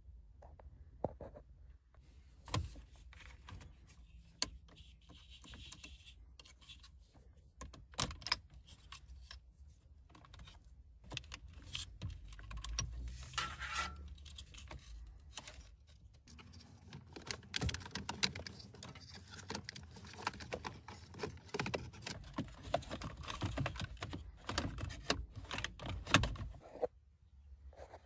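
Hands handling the plastic manual AC/heater control assembly of a Toyota Corolla: scattered plastic clicks, taps and scraping as the unit is worked loose and turned over, with the loudest click near the end.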